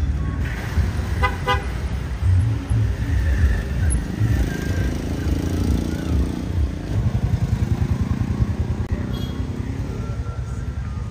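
Street traffic: motor vehicles running with a steady low rumble, and a vehicle horn giving two short toots about a second in.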